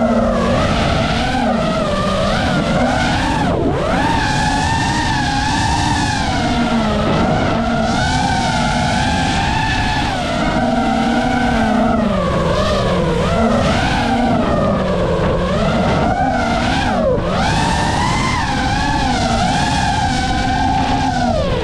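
FPV racing quadcopter's motors and propellers whining, the pitch rising and falling with the throttle. There are sharp drops about 3.5 s and 17 s in, where the throttle is cut.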